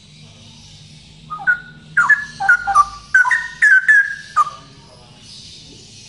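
Male straw-headed bulbul singing a loud phrase of quick, rich whistled notes, many sliding downward. The phrase starts about a second and a half in and lasts about three seconds.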